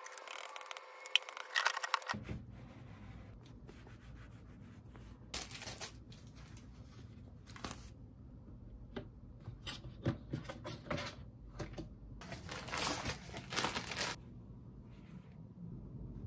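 Handling sounds from unpacking a flat squeeze mop: sharp clicks and knocks from its telescopic steel handle near the start, then scattered rubbing and rustling of plastic wrapping and the cloth mop pad, with a longer rustle about three-quarters of the way through.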